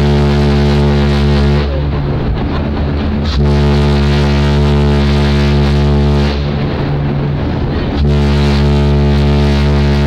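Ship's horn of the cruise liner TSS IslandBreeze sounding long, steady, deep blasts of about three seconds each with short pauses between them. One blast ends about a second and a half in, a second runs from about three and a half to six seconds, and a third starts at eight seconds.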